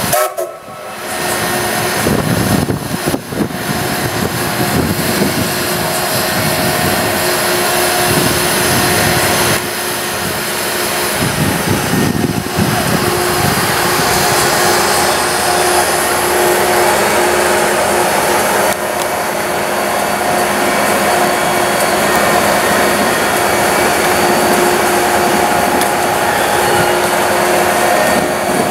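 A set of electric locomotives running slowly along the track, a steady whirring hum with a held tone.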